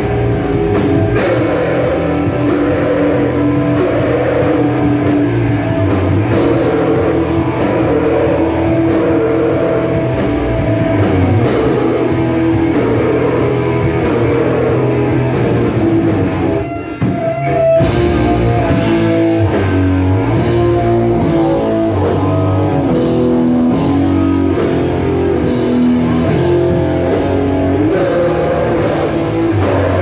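A live heavy rock band playing loud electric guitars, bass and drum kit, with a short break about seventeen seconds in before the band comes back in.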